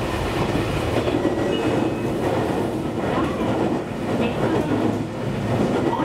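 Local train running, heard from inside the passenger car near the driver's cab as it nears its stop at Beppu.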